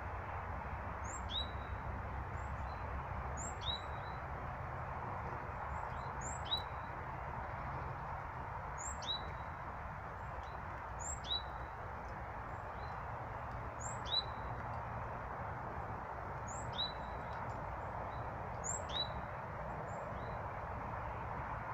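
A small bird giving a short, high call over and over, about once every two seconds, over a steady background hiss.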